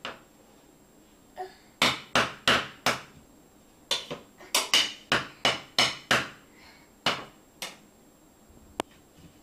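A toddler knocks and rakes a wooden spatula on a tile floor under the edge of a stove. The sharp wooden knocks come in irregular runs: four quick ones about two seconds in, a dense flurry of about ten a little later, then a few single knocks near the end.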